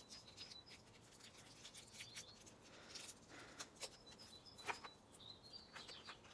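Faint rustling and small irregular clicks of clear plastic bags and tiny doll accessories being handled and picked out of a box.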